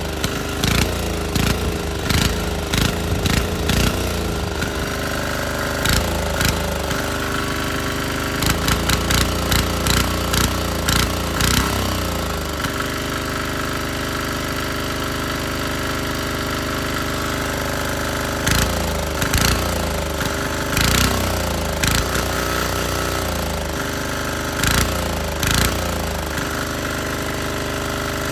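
Small single-cylinder air-cooled diesel engine running on a fuel that is mostly vegetable oil. Its speed rises and falls several times, over a steady drone broken by sharp knocks that come in uneven clusters.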